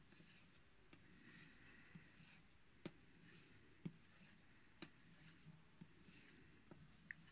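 Knife blade stropped on a leather strop loaded with polishing wax, in alternating strokes: faint swishing strokes with a few sharp clicks.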